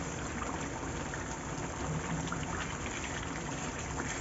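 Thick chicken curry gravy bubbling steadily in a pan on the gas, with faint scattered pops.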